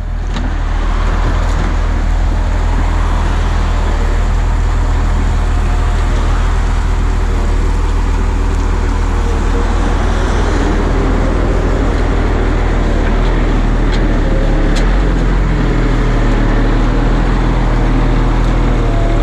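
Volvo G710B motor grader's diesel engine running steadily while the blade scrapes along the gravel bed, with a few short clicks in the second half.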